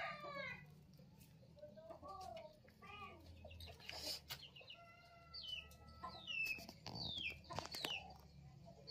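Faint domestic chickens clucking in the background, with small birds giving short falling chirps in the second half.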